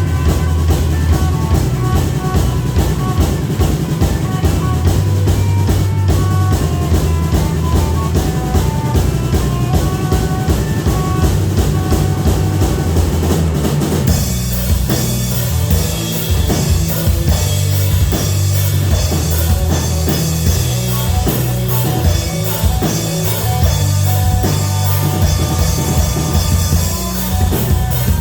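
Live rock band playing, with a full drum kit keeping a steady beat under bass and guitar. The playing changes about halfway through, the sustained melody lines giving way to a busier, brighter texture.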